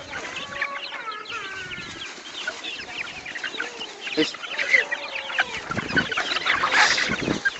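A flock of chickens clucking, many short calls overlapping, with a louder outburst near the end.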